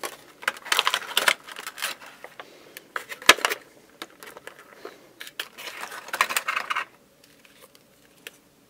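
Thin clear plastic blister packaging crackling and clicking as it is handled, in a few short bursts, with one sharp click about three seconds in.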